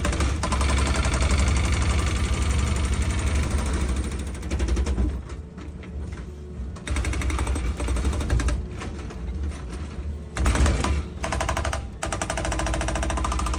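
Excavator running, with a heavy low engine rumble under a fast, steady mechanical rattle that eases off for a couple of seconds in the middle and briefly again near the end.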